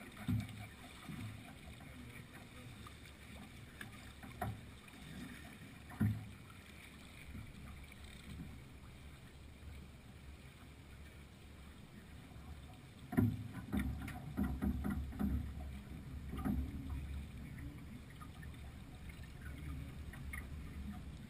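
Sound aboard a Beneteau sailing yacht under way: water moving along the hull under a steady low rush, with a few sharp knocks near the start and a louder, busier stretch of clatter and rumble about two-thirds through.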